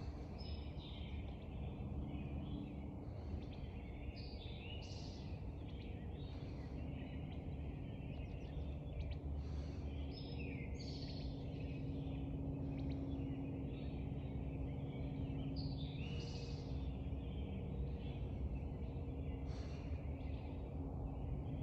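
Dawn chorus of songbirds: many short chirps and calls, scattered and overlapping, over a steady low rumble with a faint hum.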